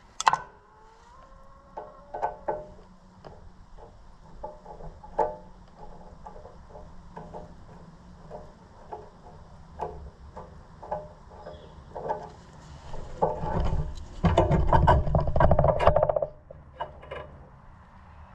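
Hand tools and metal fittings clicking and clinking as a fuel line is worked loose from a tractor engine, in scattered taps and knocks. Near the end comes a louder, denser stretch of clattering and rubbing lasting about two seconds.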